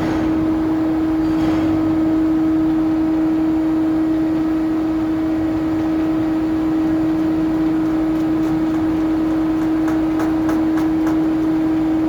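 Steady, loud hum of ship or cargo-handling machinery holding one fixed pitch, with a few faint clicks near the end.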